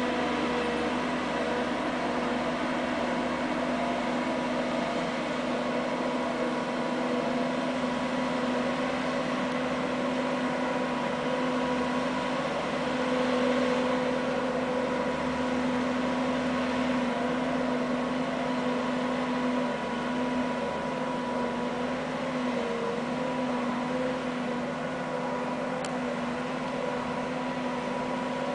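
Tracked snow groomer's diesel engine running steadily under load as it climbs a steep slope: a constant-pitch hum, slightly louder about halfway through.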